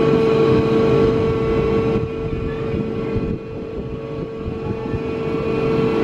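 Paratrooper fairground ride's drive machinery running: a steady mechanical hum with one strong constant tone over a rough low rumble, a little quieter from about two seconds in.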